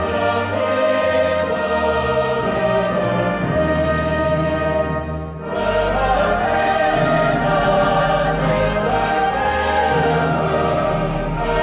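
Choral music: a choir singing with orchestral backing, sustained chords, with a brief lull about halfway through.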